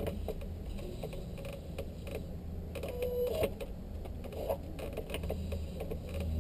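Hand-operated engine primer plunger of a Cessna 152 being pumped to prime the cold engine before start, with scattered clicks and a brief squeak about three seconds in, over a steady low hum.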